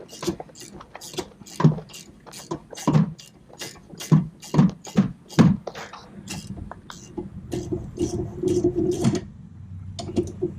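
Sharp metallic clicks and clatter of hand tools working on the strut bolts, then a small power tool's motor running steadily for about two seconds, stopping, and starting again near the end.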